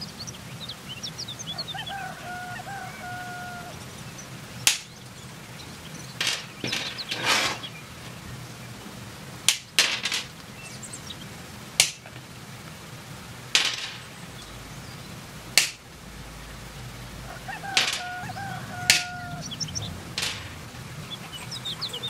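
Small flush cutters snipping a coil of thin copper tubing into rings: a sharp snip about every one to two seconds. Birds chirp and call in the background.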